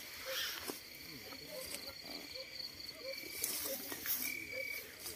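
Night insects calling in grassland: thin, steady high-pitched trills, with soft short low notes repeating about every half second and a few faint ticks.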